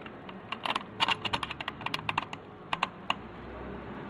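Sharp, irregular metallic clicks and taps of the four shifter bolts being handled and started into the housing, several in quick runs.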